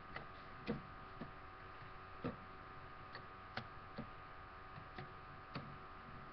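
Two metal-wheeled Beyblade spinning tops whirring faintly in a plastic stadium. About seven sharp clacks come at irregular intervals as the tops collide.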